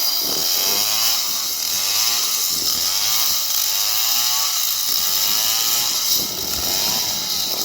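STIHL chainsaw cutting into a palm tree trunk, its engine pitch rising and falling about once a second as the chain bites and frees, over a steady hiss.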